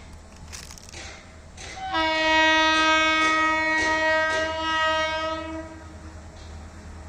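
Multi-tone air horn of TCDD DE 22042, a GM/EMD G26CW-2 diesel locomotive, sounding one long blast of several notes at once. The blast starts about two seconds in and lasts a little under four seconds. Sharp clacks of train wheels over rail joints come before and under it, about two a second during the blast.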